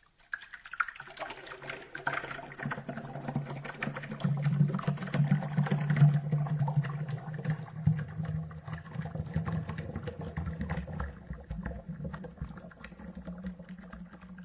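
Juicer running: a steady low motor hum starts about a second in, with irregular crackling and crunching as produce is fed through and pressed.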